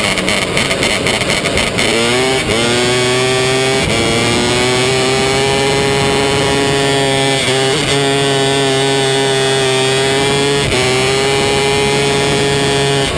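270-class micro sprint car engine heard from onboard, racing on a dirt oval: choppy and uneven for the first two seconds, then winding up to a high, steady howl. It holds there with short dips in pitch about four, eight, eleven and thirteen seconds in.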